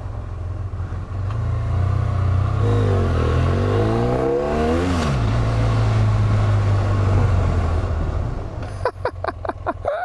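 Motorcycle engine running at low speed, a steady low hum. From about two and a half seconds in, an engine note rises and falls in pitch for a couple of seconds. Near the end, a quick run of short, sharp clicks and squeaks as the bike pulls up.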